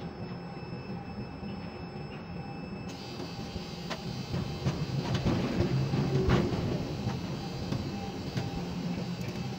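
Ship-to-shore quay crane machinery running, heard from the operator's cab: a steady low hum from the drives, with a few sharp clanks about 4 to 6 seconds in.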